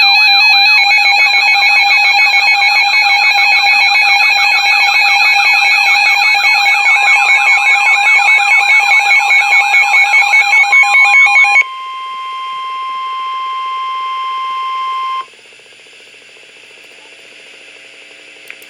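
Emergency Alert System alert tones for a tornado warning: a loud steady alarm tone overlaid with a warbling tone sweeping up and down about three times a second. About 11 seconds in it cuts to a quieter single steady tone, which stops about 15 seconds in and leaves a faint hiss.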